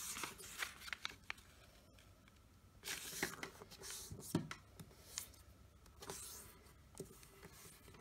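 Square of origami paper rustling and sliding on a wooden tabletop as it is folded corner to corner into a triangle and the crease is smoothed down. The sound is faint and comes in short, uneven bursts, the longest about three seconds in, with a few small clicks.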